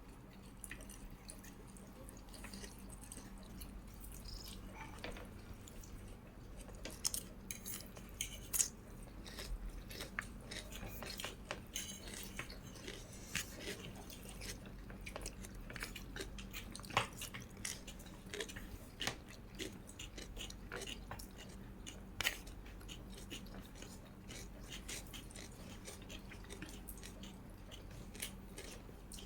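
Close-miked chewing and biting, with many small wet clicks and crisp crunches spread through, a few sharper ones standing out, over a faint steady low hum.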